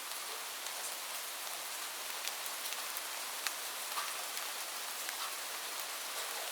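Steady rain falling, an even hiss with many close, sharp drops ticking on a hard surface.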